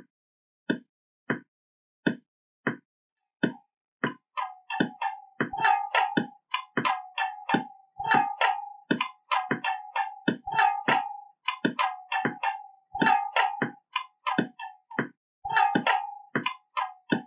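Rhythmic intro music: single knocking hits about two thirds of a second apart, then from about four seconds a faster, fuller beat with a repeated mid-pitched tone and crisp high ticks.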